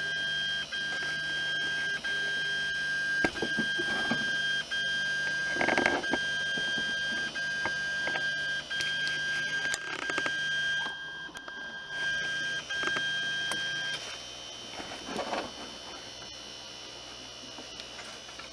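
Anet A8 3D printer sitting powered, giving a steady high whine over a low hum, with scattered clicks and knocks of handling. The whine and hum cut off together about fourteen seconds in.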